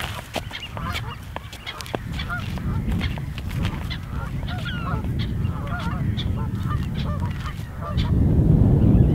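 A flock of waterbirds calling from the saltmarsh, many short overlapping calls, over wind rumbling on the microphone. The wind gets much louder about eight seconds in as the calls fade.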